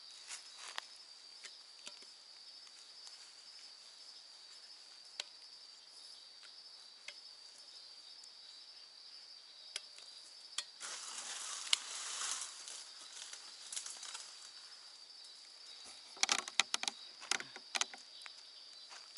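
Night insect chorus, a steady high-pitched pulsing trill, with scattered small clicks. A rustle rises about eleven seconds in, and a quick cluster of sharp clicks and knocks, the loudest sounds, comes near the end.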